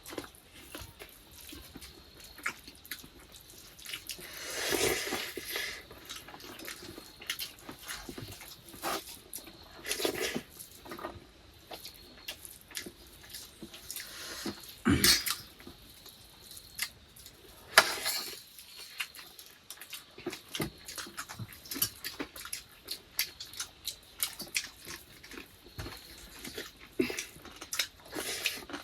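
Eating by hand: scattered soft clicks, squishes and chewing as rice and egg curry are mixed and eaten from plates, with two louder sharp knocks of dishes about halfway through.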